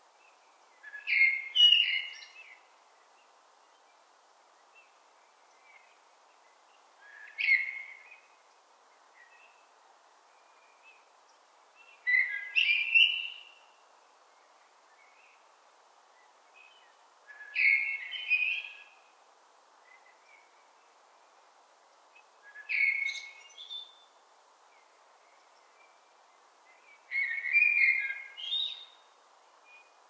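Common blackbird singing: six separate warbled phrases about five seconds apart, each about a second long, over a faint steady background noise.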